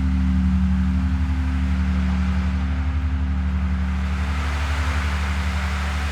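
Deep gong ringing on after a strike, a low steady hum with a fast, even pulsing. Over it, the beads of an ocean drum roll with a soft washing hiss that swells near the end.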